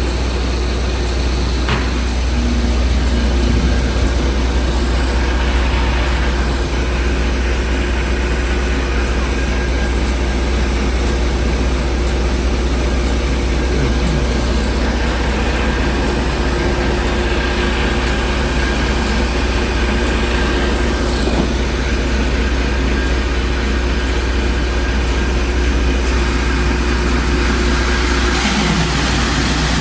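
A heavy engine running steadily, a loud, unbroken low drone with faint steady tones above it.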